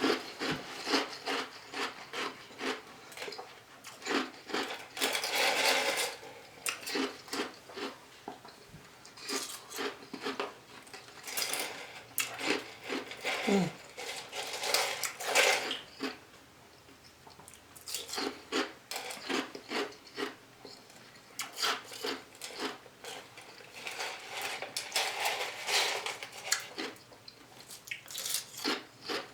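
Close-miked chewing and biting of a dessert of Arby's Oreo Bites, with irregular crackly crunches and mouth sounds, and a brief lull about halfway through.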